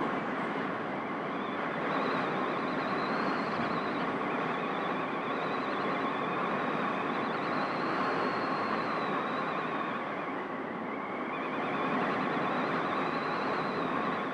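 Hurricane-force wind and driving rain: a steady rushing noise, with a faint high whistle that wavers up and down in pitch.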